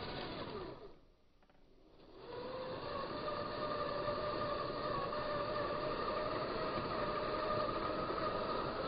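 Twin 370 electric motors and gearbox of an RC Unimog crawler truck whining as it drives over dirt. The whine dies away about a second in, returns a second or so later as the throttle is applied again, and then holds steady.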